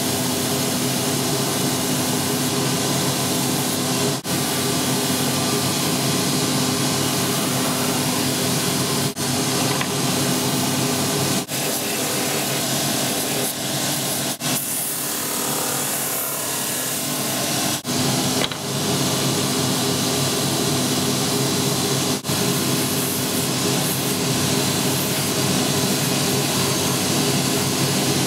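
A cobbler's shoe finishing machine runs steadily with a motor hum and the hiss of spinning brushes and a buffing wheel against the edge of a new leather sole, dipping briefly a few times.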